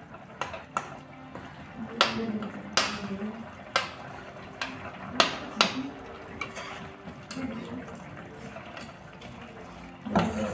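Irregular clinks and knocks of metal kitchenware being handled, about a dozen sharp strikes, most of them between two and six seconds in.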